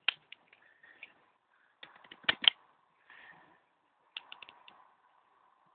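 Plastic parts of a Dino Megazord action figure clicking and rattling as they are handled and moved. The clicks are scattered, the loudest pair coming about two and a half seconds in, and a quick run of four clicks follows a couple of seconds later.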